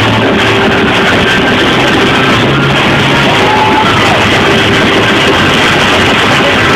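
Loud live church band music with electric guitar, played steadily and at a level that overloads the phone's microphone.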